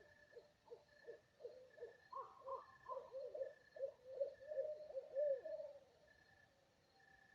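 Unidentified animal calling: a run of short hooting notes that come faster and louder, with a few higher notes mixed in partway through, then stop abruptly a little over halfway in.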